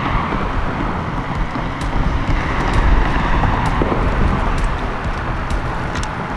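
Wind buffeting the microphone: a steady, loud, fluttering rumble with a haze of outdoor noise, and a few faint clicks scattered through it.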